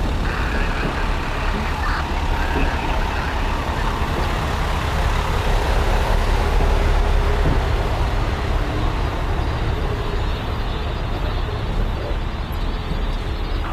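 Heavy fire truck engine running steadily, with city street noise.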